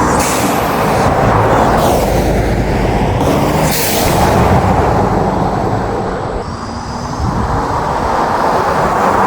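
Third-generation Toyota Tundra's twin-turbo V6 being revved, its intake noise coming through an aftermarket SXTH Element cold air intake. The sound is loud and steady, easing off briefly about two-thirds of the way through before picking up again.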